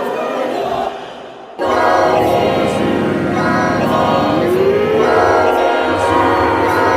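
Choral music with sustained voices; it drops away about a second in, then comes back in full about half a second later.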